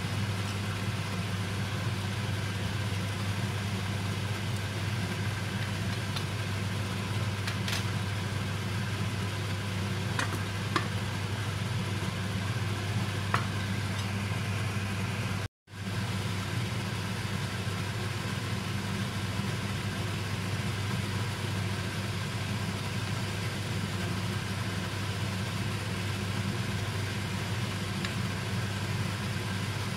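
A steady low hum runs over a pot of beetroot soup simmering on the stove, with a few light metal clinks of the ladle and pot lid. The sound cuts out for an instant about halfway through.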